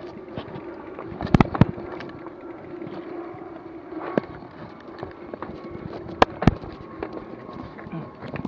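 Mountain bike rolling over a rocky dirt trail: a steady rolling and rattling noise from the tyres and bike, with sharp knocks as it hits rocks, a pair about one and a half seconds in, one near the middle and another pair about six seconds in.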